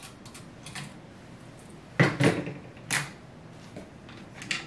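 Steel bolt of a Lee-Enfield No.4 rifle being worked by hand, giving sharp metallic clicks and clacks: a double clack about two seconds in, another about a second later, and a lighter click near the end.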